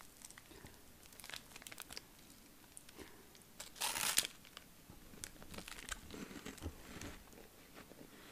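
Snack wrapper crinkling as it is handled, with scattered small crackles and one louder tearing sound about four seconds in.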